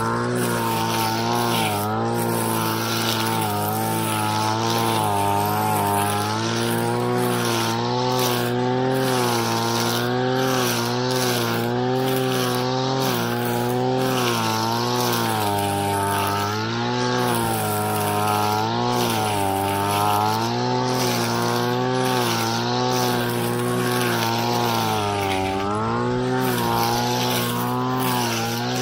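Engine-powered grass cutter running at working speed, its engine pitch rising and dipping every second or two as it takes and sheds load while cutting weeds.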